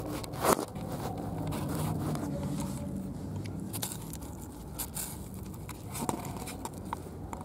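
Handling noise of paper forms and debris: a sharp knock about half a second in, then rustling, scraping and crunching with a few scattered clicks.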